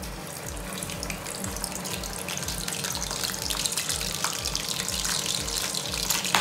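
Pre-boiled chicken pieces sizzling and crackling in hot oil in a wok. The sizzle starts as the first piece goes in and grows louder as the wet chicken spatters.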